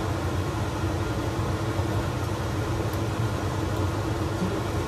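Steady hum and hiss of a running fan.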